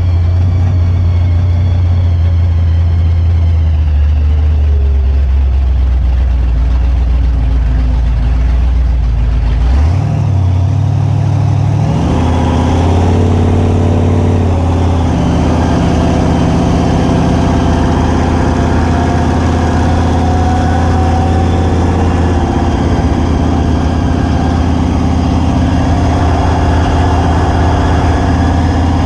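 Supercharged big-block Mopar V8 of a mid-engine 1952 Plymouth drag car, heard from inside the cabin while driving. It holds a steady low note, then about ten seconds in the pitch climbs as it accelerates before settling back to a steady cruise.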